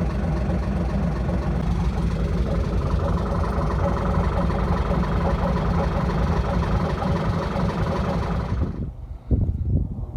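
Narrowboat's engine running steadily under way, a dense low rumble with a fast even pulse. It cuts off abruptly near the end, leaving a few low thumps.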